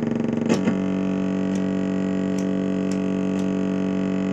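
Moog modular synthesizer oscillators sounding a steady buzzy drone through its mixer. About half a second in there is a click and the drone shifts to a slightly different set of tones, then holds steady.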